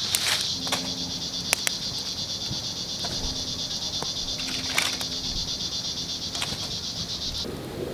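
Crickets chirping in a steady chorus of rapid pulses, with a few sharp crackles now and then. The chorus cuts off suddenly near the end.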